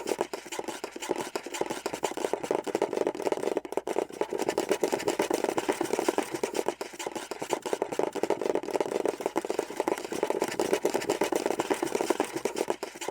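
Scurrying sound effect: a fast, continuous patter of small scratching steps, like little claws skittering over a surface.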